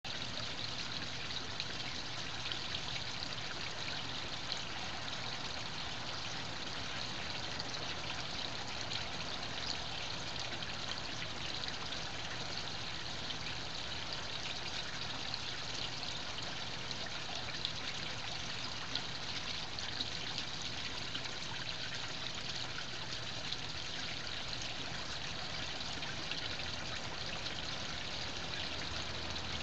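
Water spilling steadily over the lined edge of a garden pond into a lower pool, a constant unbroken splashing.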